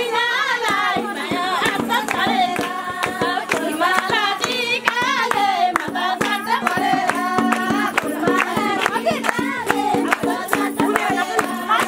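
A group of women singing together, with many hand claps over the singing.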